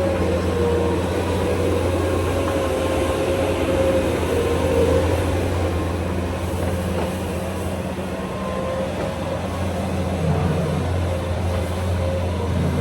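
A large engine running steadily at constant speed, with a steady whine held above its drone.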